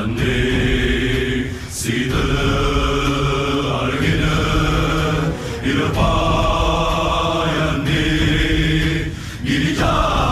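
Sinhala film song: a choir chants in long held notes over a low steady backing, in phrases a few seconds long with brief breaks between them.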